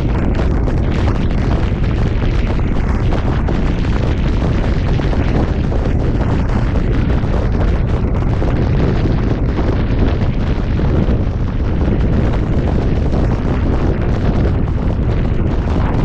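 Loud, steady wind buffeting on the microphone of a camera mounted on the roof of a fire engine driving at highway speed, a deep rumble with no letup.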